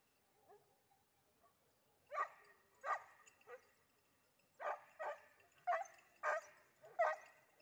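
Hare-hunting dog barking in a run of short, repeated barks, starting about two seconds in and coming faster toward the end, as a hound gives tongue while working a hare's scent.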